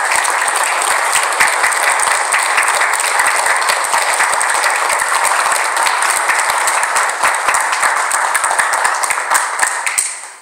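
Congregation applauding at the end of a song, a dense, loud steady clapping that dies away near the end.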